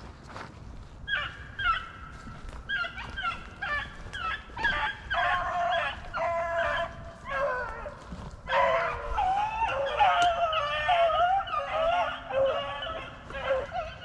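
A pack of rabbit-hunting dogs baying in full cry as they run a rabbit, several voices overlapping. The calls start about a second in and crowd together more thickly in the second half.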